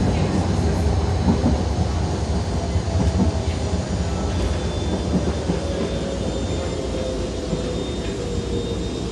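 Interior running noise of a Moderus Gamma low-floor tram: a steady rumble of wheels on rail, with a faint whine that slowly falls in pitch while the whole sound grows gradually quieter.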